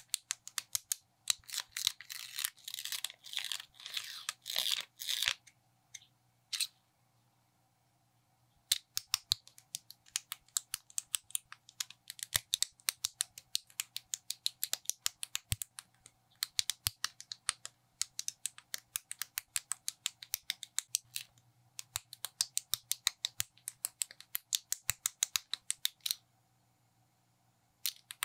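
Small plastic building bricks clicking and snapping together as they are pressed on by hand, in quick runs of sharp clicks broken by short pauses. About two to five seconds in there is a denser clatter of pieces being handled. A faint steady hum runs underneath.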